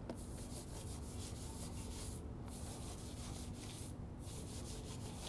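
Long-bristled Easy Reach wheel brush scrubbing a wet truck rim soaked in wheel cleaner: fast, scratchy back-and-forth rubbing, with two short breaks about two and four seconds in.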